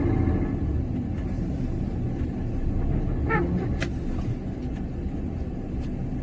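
Heavy truck's diesel engine running with a steady low rumble as the truck tries to drive out of deep snow. A short rising squeak comes about three seconds in, followed by a faint click.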